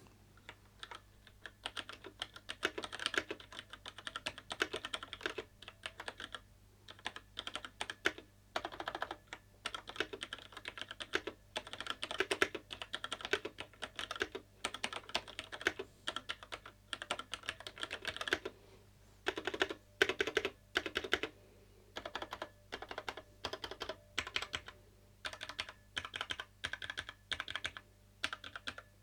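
Typing on a Cherry MX 3.0S wireless mechanical keyboard with linear Cherry MX switches: rapid runs of key clacks, broken by a few short pauses.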